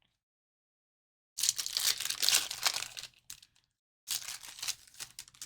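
Trading-card pack wrapper being torn open and crumpled: two bursts of crinkling and tearing, the first about a second and a half in and the longer, the second about four seconds in.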